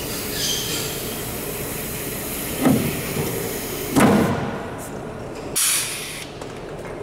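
Pop-riveting on the metal trailing edge of an aircraft wing: two sharp knocks about a second and a half apart, the second the louder, then a brief hiss, over steady workshop background noise.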